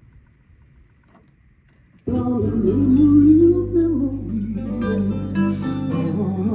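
Recorded music playing back from a cassette tape: about two seconds of faint low noise between tracks, then a new song with guitar and bass starts abruptly.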